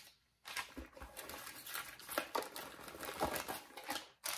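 Plastic packets of soft-plastic fishing baits being handled, crinkling with irregular crackles.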